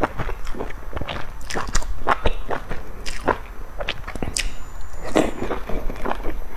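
Close-miked mouth sounds of a person biting into and chewing a soft steamed stuffed bun dipped in chili sauce: a rapid, irregular run of short clicks and smacks.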